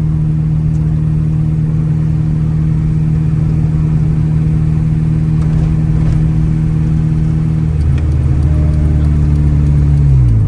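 Acura Integra GSR's B18C1 1.8-litre four-cylinder engine running steadily under way with the car in motion. About 8 seconds in the sound shifts, and near the end the revs fall quickly as the car slows.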